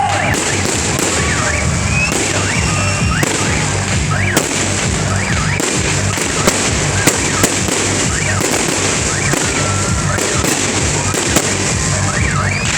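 Fireworks display going off: a steady run of bangs and crackling bursts, some whistling, with music playing underneath.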